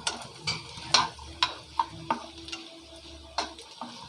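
Spatula clicking and scraping against a pan, with a light sizzle, as grated coconut is stirred and roasted in a little oil. The clicks come irregularly, about one every half second.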